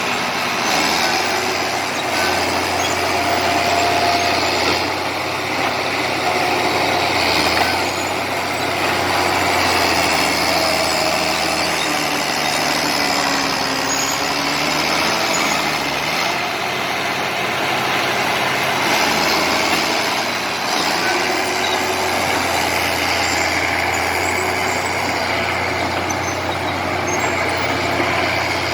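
Komatsu D70LE crawler bulldozer's diesel engine running steadily under working load while pushing clay, its pitch rising and falling now and then.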